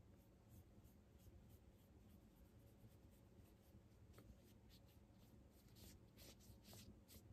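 Faint swishes of a round watercolor brush stroking across drawing-sketchbook paper, a quick run of short strokes, a few a second, somewhat stronger near the end.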